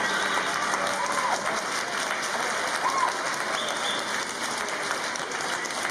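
Audience applauding, with a couple of short cheers rising above the clapping about one and three seconds in.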